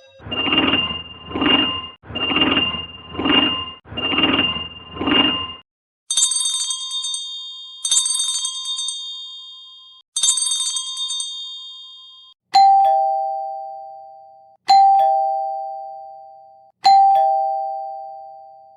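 A run of doorbell sounds. First an electronic ring pulsing in three pairs of beats, then three bright, high electronic chimes, then three two-note ding-dong chimes. In each ding-dong the lower second note fades away over about two seconds.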